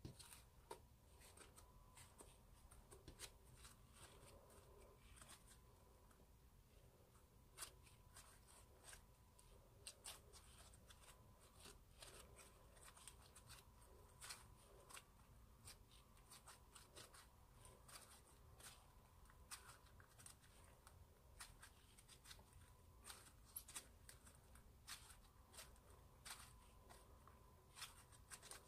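White slime being squeezed and kneaded by hand, giving faint, irregular sticky clicks and pops as it is pressed and pulled apart. A faint steady tone runs underneath.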